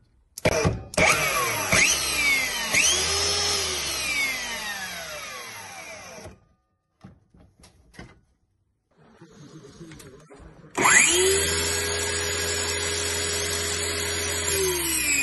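DeWalt DCS570 brushless cordless circular saw motor, powered through a wire bypass across its failed switch. After a few clicks it spins up about a second in, is blipped again, and winds down with a falling whine. After a pause it starts again, runs steadily, and begins winding down near the end, showing the bypass works.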